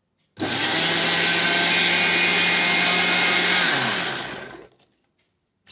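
Mixer grinder with a stainless steel jar churning thick milk cream and ice water into butter: it switches on about half a second in, runs steadily for about three seconds, then winds down in pitch and stops once switched off.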